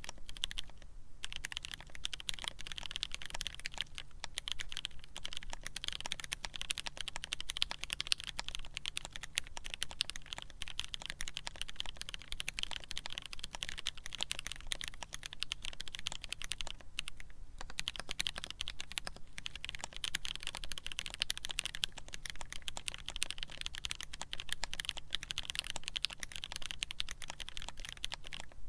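Fast continuous typing on a polycarbonate-cased Alice-layout mechanical keyboard with Krytox-lubed Pewter switches, a brass plate and GMK keycaps: rapid key clicks with a few brief pauses.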